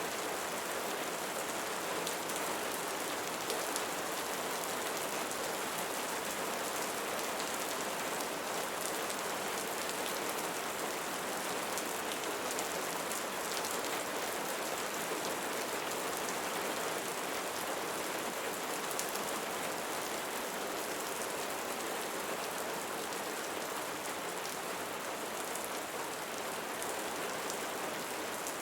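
Steady rainfall pattering on a surface, a continuous even hiss with fine drop ticks.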